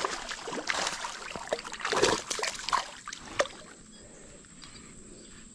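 Creek water splashing and sloshing with scattered sharp knocks for the first few seconds, then a fainter steady trickle of the flowing creek.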